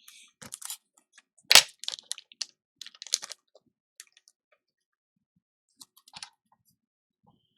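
Sharp clicks and taps of small tools such as tweezers handled on a workbench during phone board repair: a cluster in the first few seconds, the loudest about a second and a half in, and a few more around six seconds.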